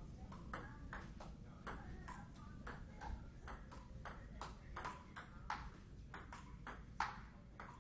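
Table tennis ball clicking back and forth off the paddles and table in a rally: a quick run of sharp ticks, about two to three a second, with a few harder hits near the end.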